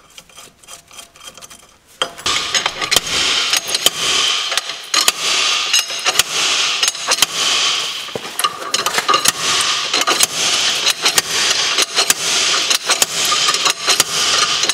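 Light metal clicks as the slide hammer's adapter is snugged onto the hub. Then, from about two seconds in, the slide hammer is worked hard on the VW Golf Mk4 front hub: repeated metal-on-metal blows, a few a second, with clattering and ringing from the tool, to drive the hub out of the wheel bearing.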